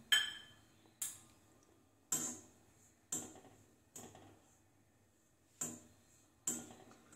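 A spatula scraping and knocking against an iron kadhai while stirring grated dried coconut as it dry-roasts. There are seven sharp strokes, about one a second, each with a short ringing tail and a brief pause midway.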